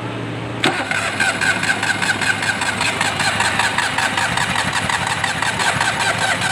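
A 660 cc car engine with a misfire fault being cranked on its starter motor, an even chugging of about five strokes a second for some six seconds, without catching, then stopping abruptly.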